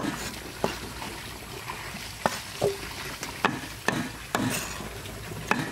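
Cleaver chopping an eel into pieces on a chopping board: about seven sharp chops at an uneven pace.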